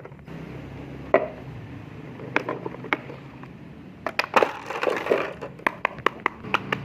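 Fidget toys being handled: a light rustling with scattered sharp clicks, a crackling stretch partway through, then a run of quick clicks, about two or three a second, near the end.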